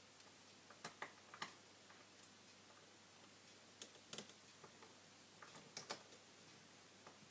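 Faint, sharp little clicks and taps, in small clusters of two or three, from a ZenFone 5 smartphone and small repair tools being handled while its screen is changed.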